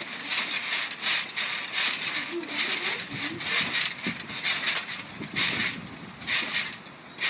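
A trampoline covered in bubble wrap being bounced on: rhythmic crackling and rattling, about two to three bursts a second, dying down near the end.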